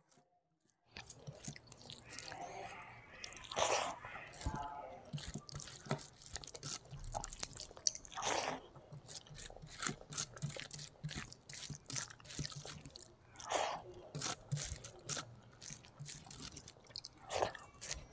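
Close-miked eating sounds of rice and fish curry eaten by hand: chewing with many wet clicks and smacks. It starts after about a second of near silence.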